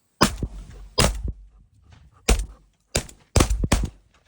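A volley of about six shotgun shots fired at flying mourning doves by several hunters over about four seconds, each a sharp crack with a low rolling tail.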